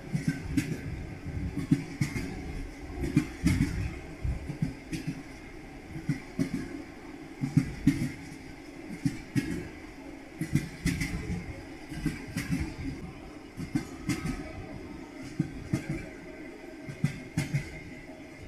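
Railway carriage wheels clattering over rail joints: a steady low rumble broken by repeated knocks in pairs and small groups, the rhythmic clickety-clack of a moving train.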